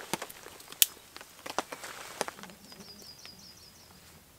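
A small, freshly lit campfire crackling, with a scatter of sharp snaps in the first two seconds, the loudest about a second in. Then a songbird gives a rapid high trill of quickly repeated chirps, about a second and a half long.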